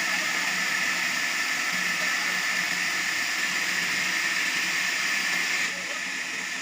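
Sawmill saw cutting through a large hardwood log: a steady, loud hiss that drops abruptly near the end.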